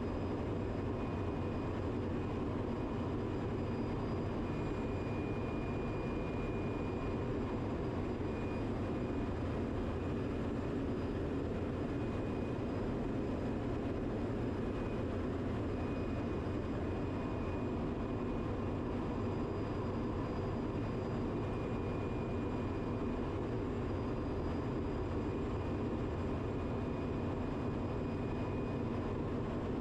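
Steady drone of a ship's engine-room machinery running: a constant low rumble and hiss, with a faint thin whine that comes and goes.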